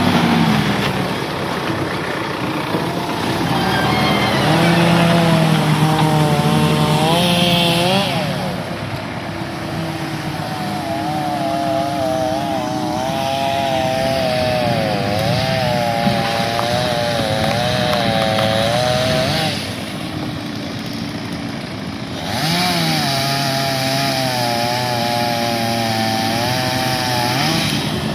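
Two-stroke chainsaw running at high revs while cutting into a tree trunk, its pitch wavering as the chain bites and loads the engine. It eases off twice, briefly about a third of the way in and again for a couple of seconds past the two-thirds mark, then picks back up.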